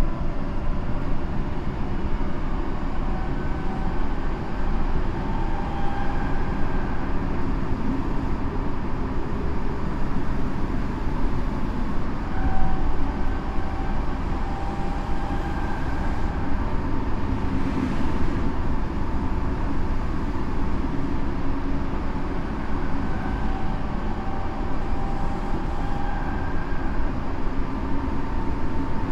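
Tokyo Metro 7000 series subway train with Mitsubishi two-level IGBT VVVF traction equipment and 160 kW motors, running at speed between stations. A steady rumble of wheels on rail, with faint short tones from the traction equipment coming and going.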